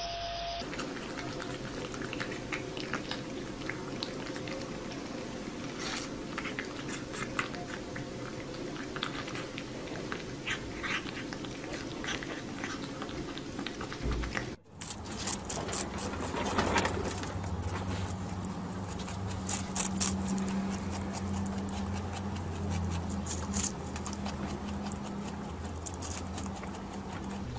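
A cat and then a rabbit chewing watermelon: scattered short wet crunches and smacks over a steady background, with a brief gap about halfway and a low hum under the second part.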